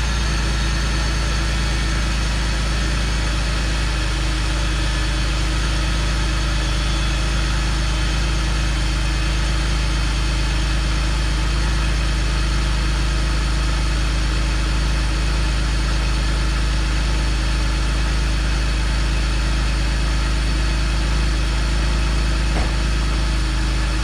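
BMW E46 325ci's 2.5-litre straight-six idling steadily at a raised cold idle. It runs smoothly with no misfire, the coil packs now dried and sealed with dielectric grease.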